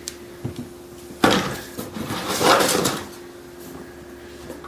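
Cardboard packaging being handled: a sharp knock about a second in, then scraping and rustling for about two seconds, with a few light clicks before.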